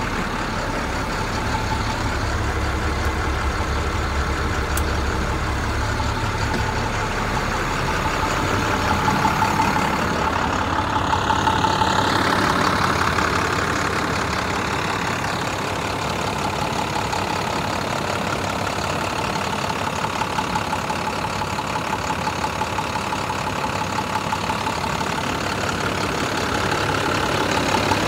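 Front-engine IC FE school bus idling steadily, a low rumble that is heavier in the first several seconds and lighter afterwards, with a steady tone running through it.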